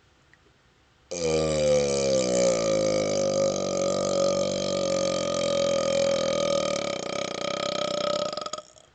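A man's long deliberate burp, the gas brought up from chugged Pepsi. It starts abruptly about a second in. Its pitch settles in the first second, then it holds as one steady, loud belch for about seven and a half seconds before cutting off.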